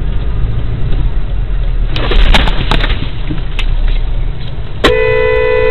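Low engine and road rumble heard inside a car in stop-and-go traffic. About two seconds in comes a burst of sharp cracks and knocks. About five seconds in, a car horn starts suddenly and is held on one steady note.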